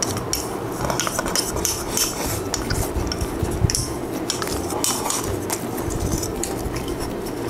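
Bamboo chopsticks clicking and scraping against a bowl in quick, irregular taps as the last of a meal is shovelled from the bowl into the mouth.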